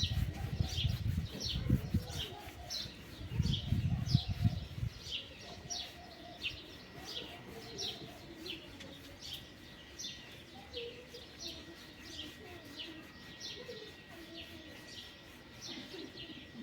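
A small bird chirping over and over, short high notes falling in pitch about twice a second. Low rumbling bumps come in the first five seconds, louder than the chirps.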